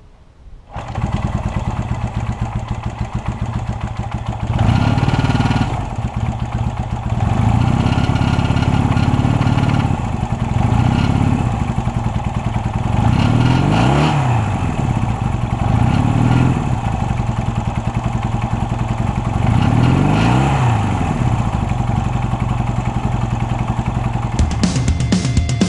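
1971 Honda CL175's air-cooled parallel-twin engine catching on a cold kickstart about a second in, then running, revved up and back down several times.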